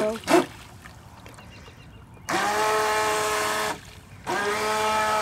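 Radio Ranger RC fishing boat's electric motor whining at a steady pitch under throttle, in two runs of about a second and a half and two seconds with a short break between, each spinning up quickly at the start.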